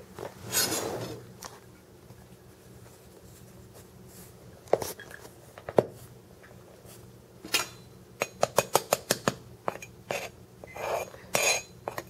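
Metal measuring cup clinking and tapping against a plastic flour tub as flour is scooped and levelled off with a plastic spatula. There are a couple of sharp clicks, then a quick run of about a dozen light taps in the second half, with scraping and rustling between them.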